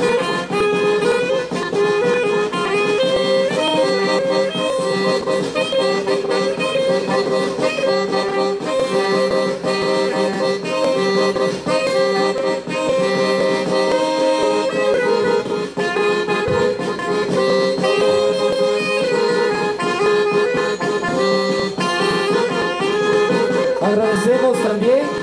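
Accordion playing a traditional Andean carnival tune over steady held notes, with a guitar accompanying.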